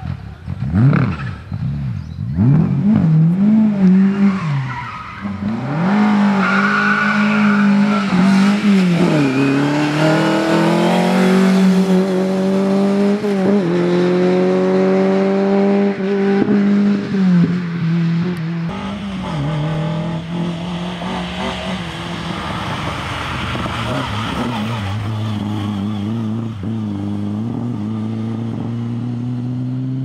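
Lada VFTS rally car's four-cylinder engine at full throttle: quick up-and-down revs in the first two seconds, then climbing hard through several gears with a drop in pitch at each shift. After about 18 seconds it is quieter and steadier, still rising slowly as it pulls away.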